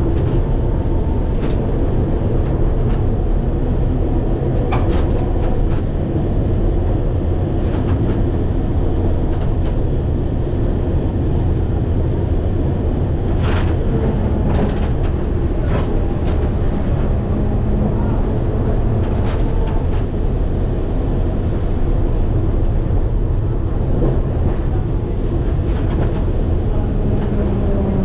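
Vintage electric tram running, heard from inside the driver's cab: a steady low rumble of wheels on rail and motor, with scattered clicks and knocks throughout.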